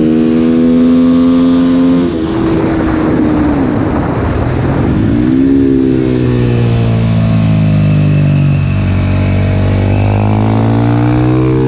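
Husqvarna FS450 supermoto's single-cylinder four-stroke engine under way on track: held at steady revs, shut off about two seconds in, then dipping and picking back up around five seconds in and pulling at steadier, lower revs, with a slight rise near the end.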